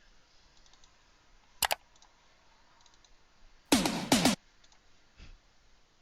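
Faint computer mouse and keyboard clicks, with one sharp click about one and a half seconds in. Near the four-second mark a short, louder sound with falling pitch lasts about half a second.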